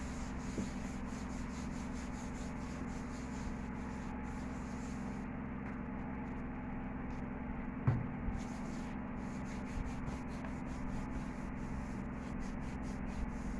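A nail buffer block being rubbed back and forth over toenails in runs of quick strokes, with a short let-up near the middle, over a steady low hum.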